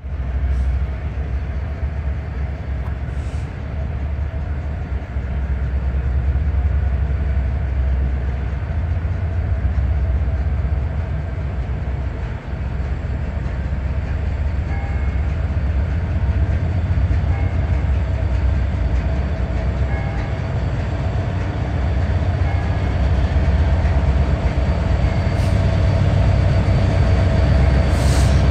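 Approaching Norfolk Southern diesel locomotive: a steady low engine rumble that slowly grows louder as the train nears.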